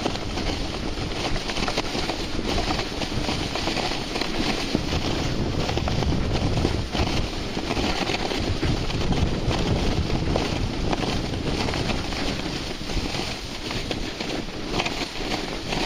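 Wind rushing over a hat-mounted microphone while moving fast downhill on snow, a steady rough noise without pauses.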